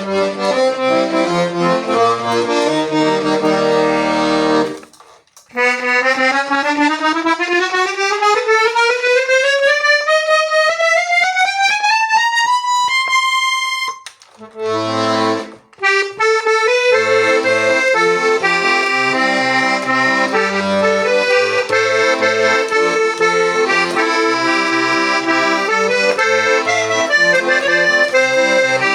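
Hohner Junior 40 piano accordion being played: chords over bass notes, then a single-note scale climbing steadily for about eight seconds, and after a short break a rhythmic accompaniment of alternating bass notes and chords.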